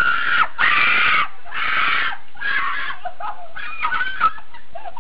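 A person screaming: four long, high-pitched shrieks one after another, followed by fainter, broken cries.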